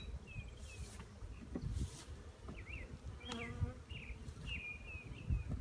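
Honeybees buzzing around the hive, with small birds chirping several times in the background.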